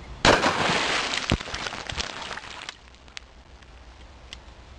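A single sharp blast hits an apple on the water. It is followed by about two and a half seconds of spray and apple fragments raining down onto the surface, then a few scattered small splashes.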